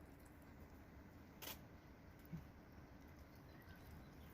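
Near silence: room tone, with one faint sharp click about a second and a half in.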